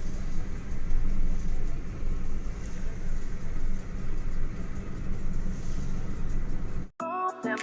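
Steady low rumble of road and engine noise inside a moving car. It cuts off abruptly near the end and background music begins.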